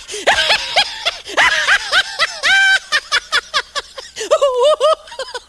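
A high-pitched, cartoon-style laugh sound effect presented as a lion laughing: a quick string of short 'ha' notes, each rising and falling in pitch, with one flat held note about halfway through.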